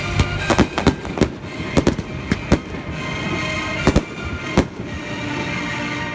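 Aerial fireworks bursting: a rapid string of sharp bangs and cracks in the first half, then two more separate bangs, with music playing underneath.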